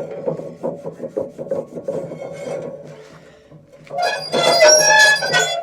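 Scrubbing and scraping on a cast iron pan: quick scratchy strokes, then about four seconds in a louder scrape with a ringing screech.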